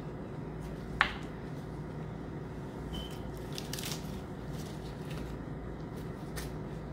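Soft, wet handling sounds of a softened rice paper wrapper being smoothed flat on a wooden cutting board and lettuce being laid on it with gloved hands, over a steady low hum. A single sharp tap about a second in is the loudest sound.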